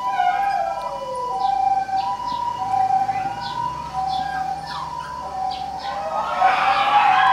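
A two-tone hi-lo siren of the Japanese ambulance kind, switching back and forth between two steady pitches about every half-second. Short higher calls sound over it and grow louder near the end.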